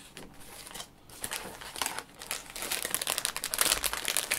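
Plastic snack bag crinkling as it is handled, starting about a second in and going on in a dense, crackly run.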